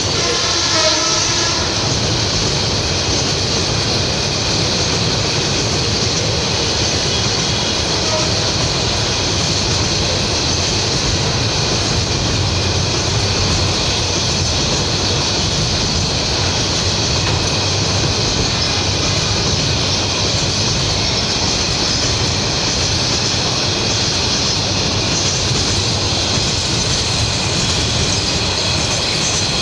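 Container freight train's bogie flat wagons rolling past close by: a loud, steady rumble of wheels on the rails that goes on without a break.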